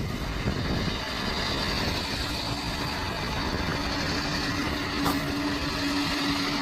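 Bulldozer's diesel engine running steadily under load, a low rumble with a steady whine that comes in about four seconds in.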